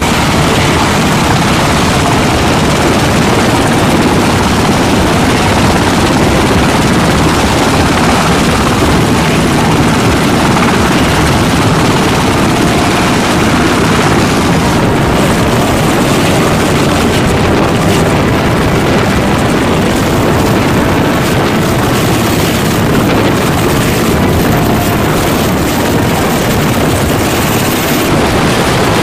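Navy Sikorsky H-60 Seahawk helicopter hovering close by: its rotor and turbine engines make a loud, steady wash of noise, with a thin high whine over it in the second half.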